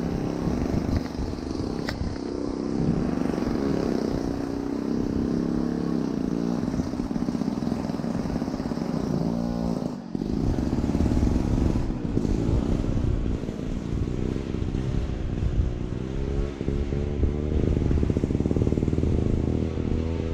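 A motor engine running steadily, its pitch rising and falling a little, with a brief drop about halfway through.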